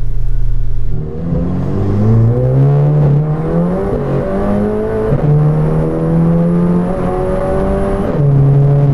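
Turbocharged four-cylinder engine of a stripped, caged VW MK7 GTI track car, heard from inside the gutted cabin, accelerating hard. Its pitch climbs, breaks at gear changes about three and five seconds in, climbs again and then drops to a lower steady note near the end.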